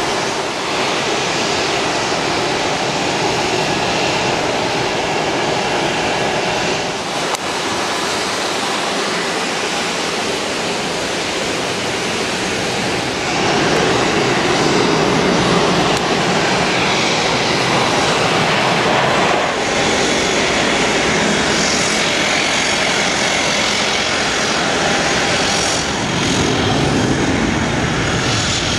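Jet airliner engines running at takeoff power as aircraft roll down a wet runway and climb away, a steady rushing roar that grows louder about halfway through.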